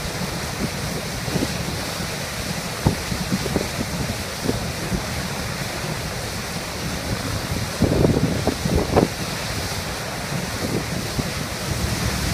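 Water jetting from two pump discharge pipes: a steady rushing spray of pumped floodwater. A few low bumps of wind on the microphone come about eight to nine seconds in.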